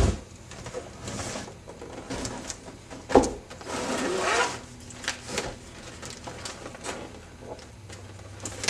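Cardboard model box being handled and opened: rustling and scraping of the packaging, with a sharp knock about three seconds in and a louder stretch of scraping just after it.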